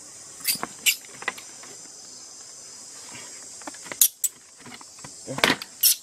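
A plastic basket trap knocks and rattles sharply in three short clusters, loudest near the end, as a young monkey is lifted out of it. A steady high buzz of insects runs underneath.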